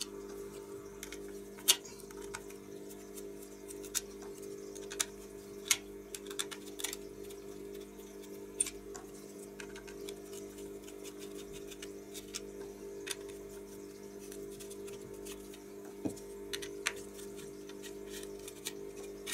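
Small screwdriver backing screws out of a circuit board in a plastic amplifier front panel: scattered sharp clicks and taps as the tool, the board and its housing, and the tiny screws are handled and set down. A steady low hum runs underneath.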